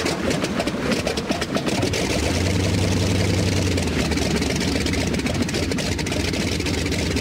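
Light aircraft piston engine running with the propeller turning: uneven and clattering for about the first two seconds, then settling into a steady low drone.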